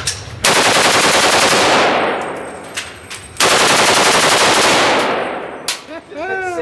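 Bipod-mounted machine gun firing two full-automatic bursts, each about a second and a half long, with about a second and a half between them. Each burst trails off in a long echo in the enclosed indoor range.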